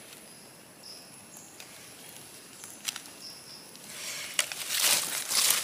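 Rustling of dry leaf litter on a forest floor, becoming loud in the last second and a half. Before it, a few faint, short high chirps.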